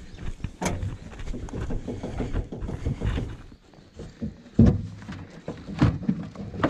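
Carpeted plywood deck panel being handled and set down into a Wizard 330 aluminium jon boat: rustling and scraping with several knocks against the aluminium frame, the two loudest about four and a half and six seconds in.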